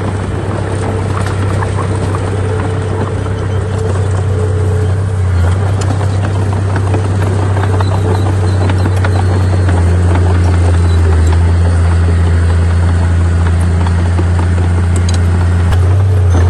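Heavy diesel engine of earthmoving machinery running steadily with a deep hum, getting somewhat louder over the first several seconds, with scattered light clanks and ticks.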